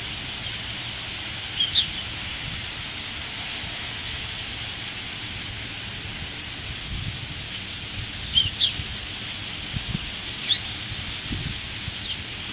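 Outdoor ambience: a steady hiss with a few short bird chirps, a pair about a second and a half in and several more in the last few seconds.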